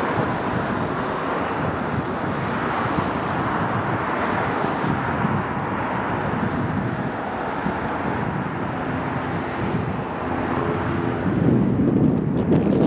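Aircraft noise, a steady rushing sound, with wind buffeting the microphone. It grows louder and deeper near the end.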